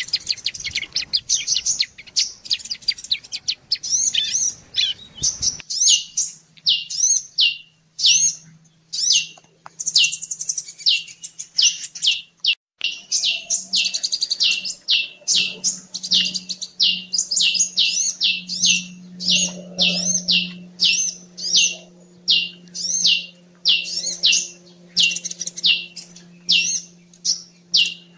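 Bird-lure (pikat) recording of bar-winged prinia (ciblek) and sunbird (kolibri) calls, played to draw small birds in. Short, sharp, high notes follow one another about twice a second without a break, densest in the first few seconds.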